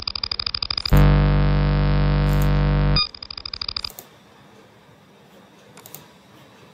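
Signal-generator test tone played through the simulated LM386 amplifier's speaker: a synthetic buzz rich in harmonics. It is chopped into rapid pulses at first, becomes a loud steady low buzz for about two seconds, breaks into pulses again, and cuts off about four seconds in. A few faint clicks follow.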